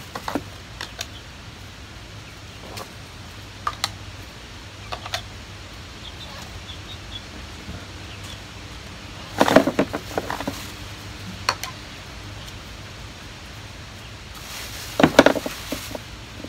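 White PVC pipe fittings being handled and pushed together: scattered plastic clicks and knocks, with two louder bursts of clatter, about ten seconds in and near the end.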